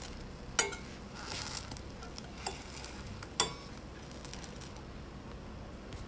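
Slotted metal spatula scraping and clinking against a stainless steel frying pan as a pancake is pressed and shifted, with sharp clinks about half a second in and a little over three seconds in. Under it the oil sizzles faintly, dying down toward the end as the pancake finishes cooking.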